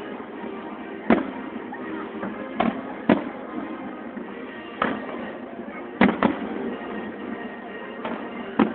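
Aerial fireworks shells bursting overhead, about eight sharp bangs at uneven intervals, some in close pairs.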